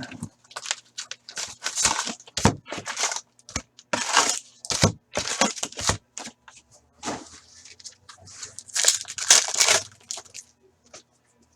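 Tearing and crinkling of a hockey card hobby box's wrapping and cardboard and of the foil card-pack wrappers as the box and its packs are ripped open: a run of irregular short rips and rustles that stops about ten seconds in.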